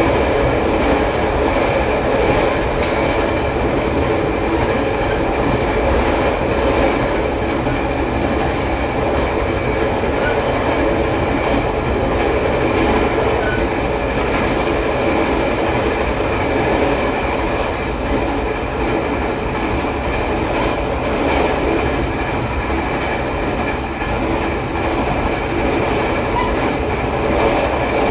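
Running noise of a Tze-Chiang push-pull express train hauled by an E500 electric locomotive, cruising steadily at about 120 km/h. Steel wheels on rail, with the flat-spot pounding of out-of-round wheels.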